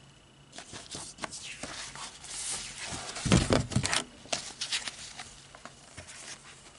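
Comic book paper rustling and handling noises as the comic is shifted and turned over on a board: a run of short rustles and clicks, with a dull, louder bump about three seconds in.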